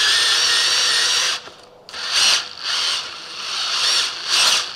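Cordless drill turning a large bit to bore out a stripped head-bolt hole in a Kia V6 engine block for a thread-repair sleeve, the bit cutting down the last centimetre to its depth mark. It runs steadily, stops about a second in, then comes back in several short bursts.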